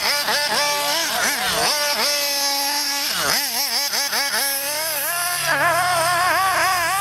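Radio-controlled car's motor whining and revving up and down as it is driven hard, its pitch swooping up and falling back again and again with each burst of throttle.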